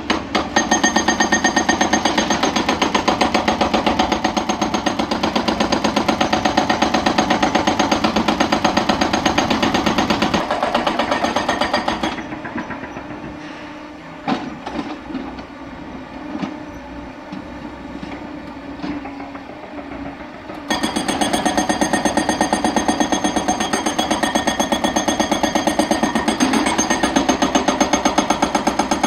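Hydraulic breaker hammer on an excavator pounding rock with a rapid, steady hammering. It stops about ten seconds in, leaving the machine's engine and a few scattered knocks, and starts hammering again about twenty seconds in.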